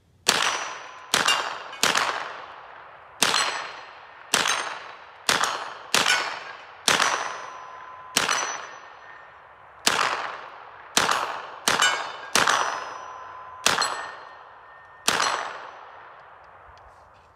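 Smith & Wesson M&P 15-22 pistol firing .22 LR rounds semi-automatically, about fifteen shots at a slow, uneven pace, each echoing and dying away. A brief ringing tone follows several of the shots.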